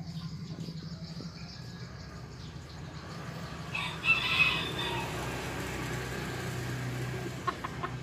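A bantam rooster, a cross of Serama, kate and jungle fowl, crows once about halfway through: a loud start followed by a drawn-out tail.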